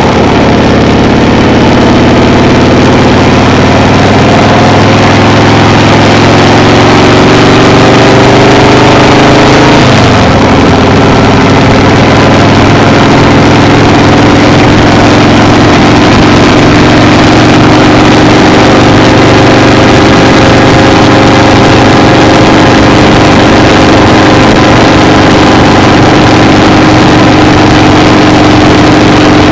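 Vehicle engine running loudly under way, its pitch climbing slowly, with a short break about ten seconds in, as at a gear change, before it settles and climbs gently again.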